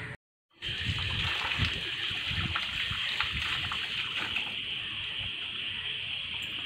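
Water running from an outside wall tap and splashing as hands are washed under it. The sound is steady and comes in after a brief dropout near the start.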